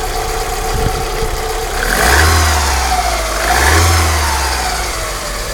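Alfa Romeo 155 2.0 Twin Spark 16V four-cylinder engine idling, blipped twice so the revs briefly rise and fall. It makes a mysterious noise that the owner wonders may come from bad alternator bearings.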